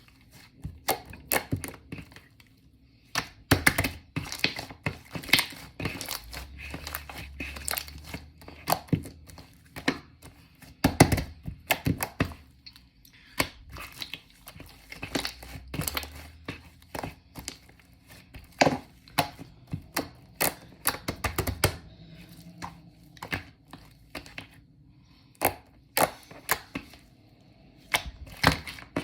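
Shaving-foam marbled slime being squeezed and stretched by hand, giving a run of irregular sharp crackles and pops, a few each second, with short quiet gaps between handfuls.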